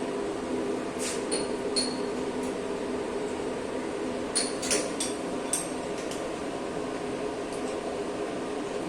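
Sharp metallic clinks with a short high ring, a few about one to two seconds in and more about four to five and a half seconds in, over a steady machine hum: metal parts knocking as the test bar is re-seated and tightened in a CNC lathe chuck.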